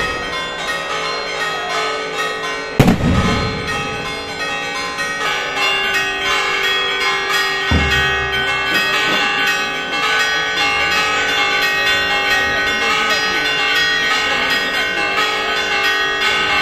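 Church bells ringing a rapid festive peal, with many bells striking over one another. A single loud firework bang comes about three seconds in, and a low thud about eight seconds in.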